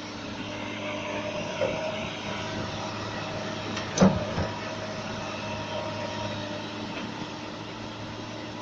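Excavator's diesel engine running steadily, with one sharp clank about four seconds in.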